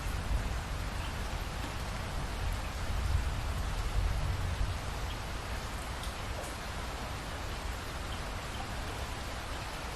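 Steady rain falling, an even hiss of drops, with a low rumble underneath that swells about three to five seconds in and then eases.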